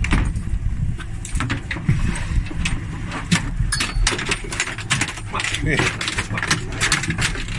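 Steady low rumble of the boat's engine, with repeated sharp knocks and clattering on deck throughout.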